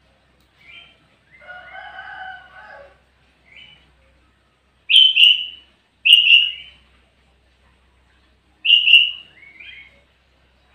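Sooty-headed bulbul (kutilang) singing: a few soft notes and a scratchy chatter, then three loud, short whistled phrases, each dropping at the end, the last followed by a lower falling note.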